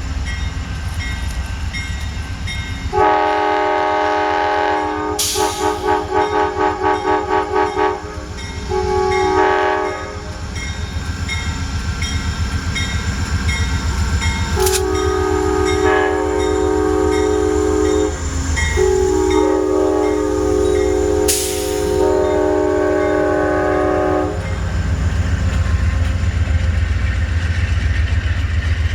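Amtrak passenger locomotive's multi-note horn chord played as a horn show: a long blast about three seconds in, then a run of rapid short pulses at about three a second, a short blast, and two long blasts that end about 24 seconds in. Under the horn runs the rumble and clickety-clack of the passing train.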